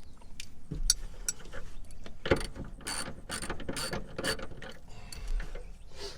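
Ratchet wrench clicking in irregular strokes as it tightens the 3/4-inch nut on the seatbelt retractor's floor bolt.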